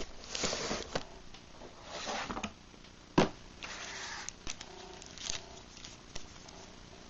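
Cardboard and paper packaging being handled: short rustling and scraping as the inner cardboard tray and a paper insert are lifted out of a phone box, with one sharp tap about three seconds in.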